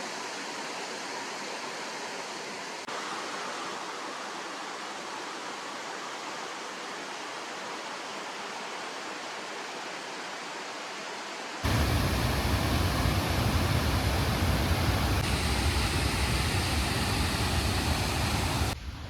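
Steady rushing of a small waterfall and river. About twelve seconds in it becomes louder and deeper.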